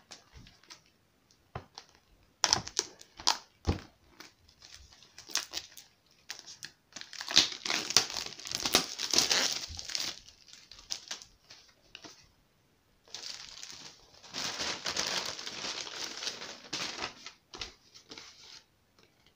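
Plastic packaging wrap crinkling and tearing as it is pulled off a product box. Scattered crackles give way to two long spells of dense crinkling, about seven seconds in and again about thirteen seconds in.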